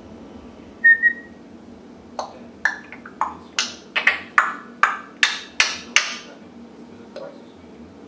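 African grey parrot giving a short whistle, then a quick run of about a dozen sharp clicks over some four seconds, about three a second.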